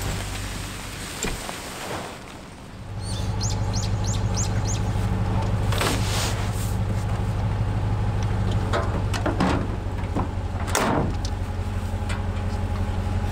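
A vehicle engine idling with a steady deep hum that comes in about three seconds in. Birds chirp a few times just after it starts, and there are a couple of sharp knocks as gear is loaded into a pickup's bed.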